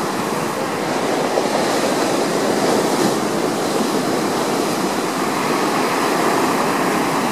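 Ocean surf breaking and washing up the sandy shore, a steady rushing noise.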